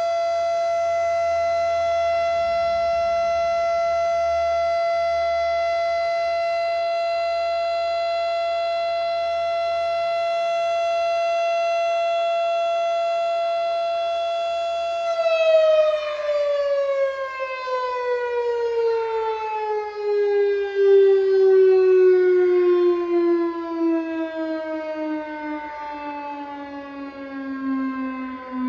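Federal Signal STH-10 outdoor warning siren sounding the curfew alert. It holds one steady high tone for about fifteen seconds, then winds down, its pitch falling slowly and evenly until the end.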